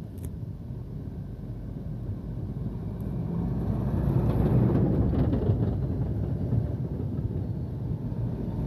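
Heavy tipper trucks driving past close by: a low engine and tyre rumble that builds about three seconds in and stays loud as one truck goes by and another follows.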